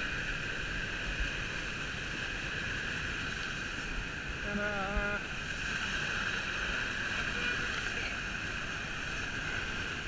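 Waterfall pouring into a rocky plunge pool, a steady rush of falling and churning water heard close up. About five seconds in, a person's voice gives a short call.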